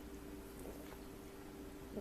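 Quiet room tone: a steady, faint low electrical hum, with a faint soft sound about two-thirds of a second in.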